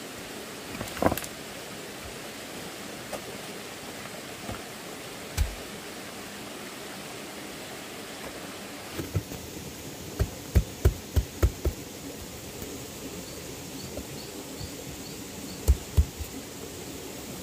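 Steady rush of flowing stream water with sharp knocks over it: single knocks about one and five seconds in, a quick run of about six near the middle, and two more near the end.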